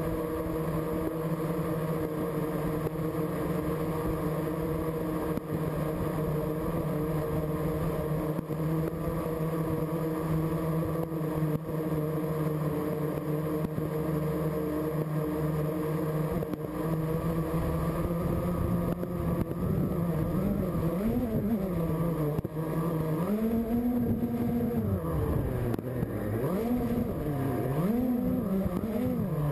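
Small remote-controlled aircraft's motor and propeller running at a steady pitch. About two-thirds of the way in, the pitch starts rising and falling again and again as the throttle changes.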